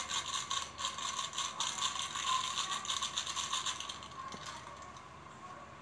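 Plastic spice packet crinkling and rattling as masala powder is shaken and tapped out of it: quick clicks that die away about four seconds in.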